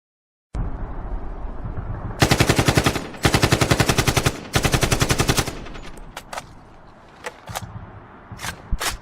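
AK-47 rifle sound effect: three bursts of full-automatic fire at about ten shots a second, each lasting roughly a second, over a low rumbling background. The bursts die away into a tail, followed by a few single sharp cracks or clinks near the end.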